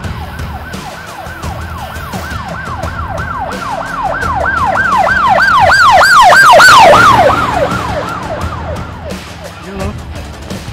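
Emergency vehicle siren in a fast yelp, about three wails a second, growing louder as it approaches. It is loudest about six to seven seconds in, then drops in pitch and fades as it passes by.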